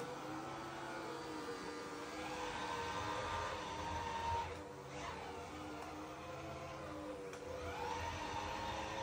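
Dreame X40 Ultra robot vacuum-mop running across a hard floor: a steady whirring hum, with a higher whine that comes in about two seconds in, drops out around the middle and returns near the end, its pitch wavering.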